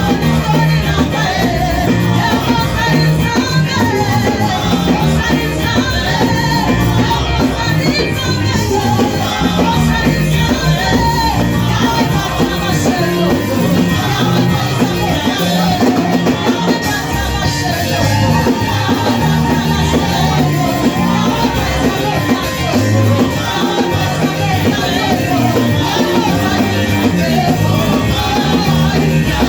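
Loud live worship music: a band playing with a steady bass line, and voices singing.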